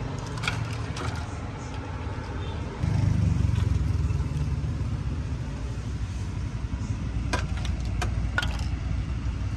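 A low steady rumble like a vehicle engine running, which gets louder about three seconds in, with a few sharp clicks or taps near the end.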